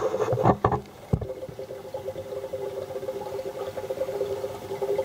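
Home-built EVAP smoke machine running: baby oil bubbling and crackling on its hot nichrome wire, over a steady two-note hum from its rewound microwave-oven transformer. A couple of sharp knocks in the first second or so.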